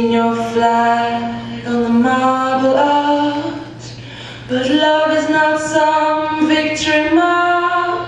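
A slow song with a solo voice singing long held notes, with a short quieter gap about halfway through, over a steady low hum.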